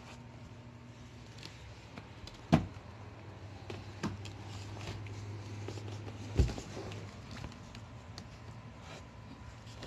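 Two loud, sharp thumps, about four seconds apart, and a few lighter knocks from shoes and hands being handled close to the phone, over a steady low hum.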